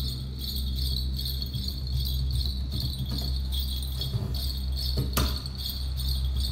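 Percussion music over a low, steady synth drone, with a rhythmic high jingling pattern and hand strikes on a cajon; one sharp hit about five seconds in stands out.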